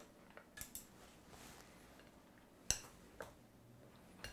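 Wooden chopsticks clicking against a ceramic plate as chicken wings are turned in their soy-and-alcohol marinade: a few faint scattered clicks, the sharpest nearly three seconds in.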